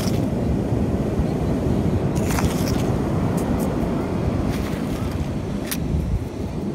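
Steady low rumble of wind buffeting the microphone, with a few short scrapes of sand and pebbles as a plastic toy is dug out of the sand by hand.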